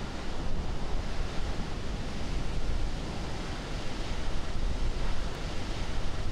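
Recorded rocket-launch exhaust noise dubbed in as a reconstructed soundtrack for a Titan LR-87 engine firing: a steady rushing roar with a deep rumble underneath.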